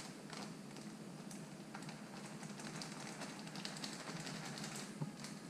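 Plastic bag of wheat flour crinkling and crackling faintly as it is handled, with a steady low hum underneath.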